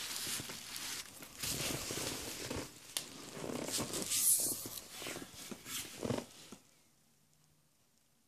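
Cardboard box and styrofoam packing rustling, scraping and clicking as a heavy linear actuator is shifted around in them, for about six and a half seconds.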